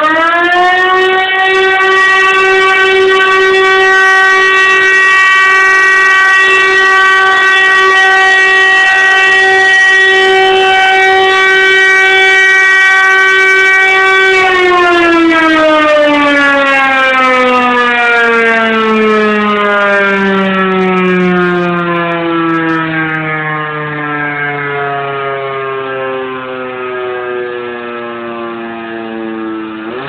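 Civil-defense-style siren sounding an emergency alarm. It finishes winding up in the first second, holds one steady tone for about fourteen seconds, then winds slowly down in pitch over the second half, and starts winding up again at the very end.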